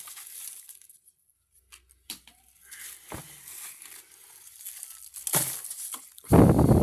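Dry rubbish and litter being gathered up by hand: crinkling and rustling of sacking and debris with scattered short scrapes, and a loud burst of rustling near the end.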